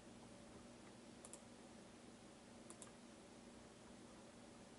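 Near silence with a low steady hum, broken twice by faint double clicks of a computer mouse about a second and a half apart.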